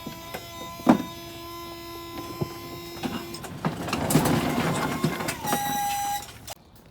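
Remote-controlled tipper's electric hydraulic pump running with a steady whine while the deck tips. In the middle a louder rushing clatter follows, as the load of broken concrete slides off. The sound cuts off suddenly near the end.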